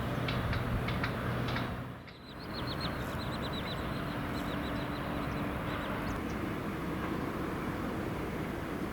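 Steady outdoor din of distant city traffic, with small birds chirping in quick short notes for several seconds after a brief dip in level about two seconds in.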